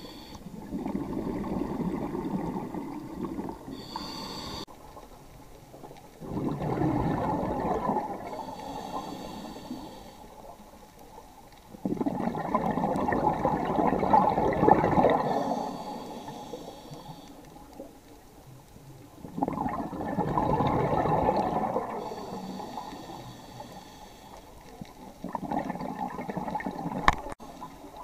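Scuba diver breathing through a regulator underwater: a gurgling rush of exhaled bubbles every six to seven seconds, with a faint hiss of inhalation between them. A sharp click near the end.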